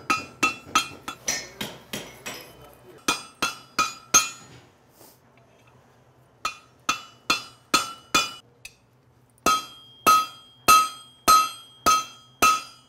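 Hand hammer striking a red-hot steel ring on the horn of a right-angle bick, each blow a sharp metallic ring, about three blows a second. The blows come in three runs with two short pauses. The hot eye of a bottle opener is being rounded out over the bick.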